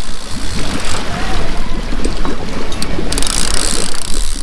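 Heavy wind rumble buffeting a GoPro's microphone, over the steady low drone of the fishing boat's engine.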